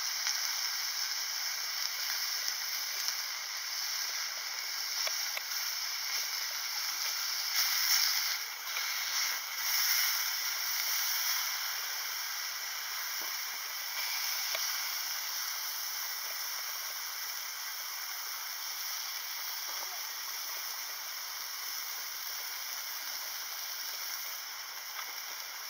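Beef pieces sizzling in a small frying pan on an Iwatani Junior Compact single gas burner: a steady hiss with light crackles, swelling for a few seconds about eight seconds in.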